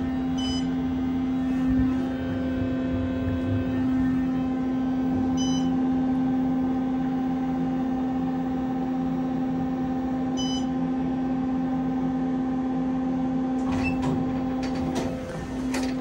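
Steady hum inside a moving OTIS Series 5 hydraulic elevator car, with a short high beep about every five seconds. Near the end the hum changes and there are clicks and knocks as the car stops and the doors open.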